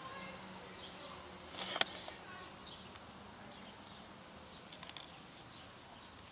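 Outdoor ambience with faint, scattered bird chirps, broken by a sharp clatter of a few quick clicks about two seconds in, the loudest thing here, and a shorter run of light clicks near five seconds.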